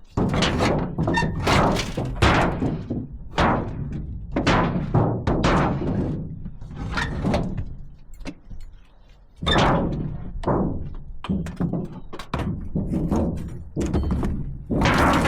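A series of irregular knocks and thuds, about one or two a second, with a short pause about two thirds of the way through, over background music.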